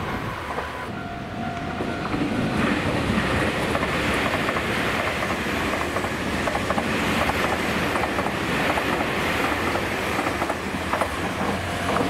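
Electric train passing on the line, the running noise swelling about two and a half seconds in and holding steady, with short clicks of the wheels over rail joints.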